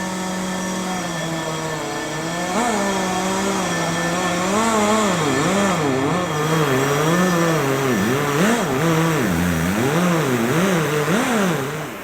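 A power tool's motor running under changing load. Its pitch holds fairly steady for the first few seconds, then wavers up and down repeatedly through the rest of the stretch.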